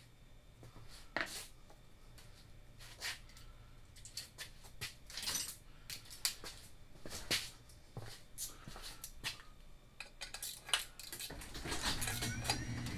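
Hand tools and small metal parts being handled, giving a dozen or so light, separate metallic clinks and clatters. Near the end a steady low hum comes in.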